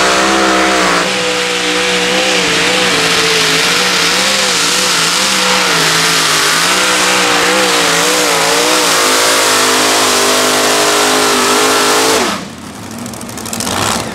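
Multi-engine unlimited-class pulling tractor, its several V8 engines running at full throttle under load during a pull, the pitch wavering up and down. About twelve seconds in the engines cut off abruptly as the pull ends.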